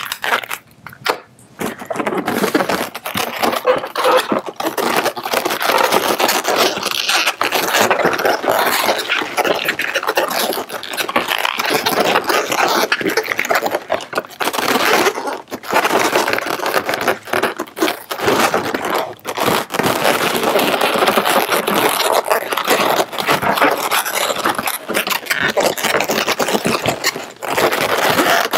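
Latex modelling balloons rubbing and squeaking against each other as a small balloon scrap is twisted, tied on and the balloon sculpture handled: a dense, scratchy rubbing with a few brief pauses.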